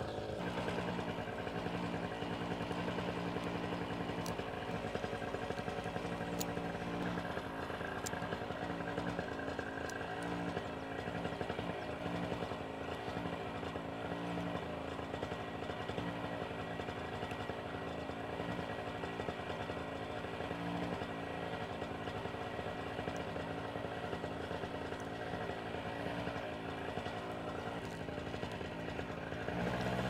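Paramotor engine idling steadily, its pitch and level holding even.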